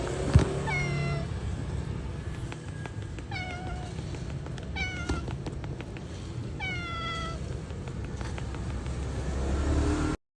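A street cat meowing four times, each a short call falling in pitch, over a low steady rumble. A sharp knock just before the first meow is the loudest sound.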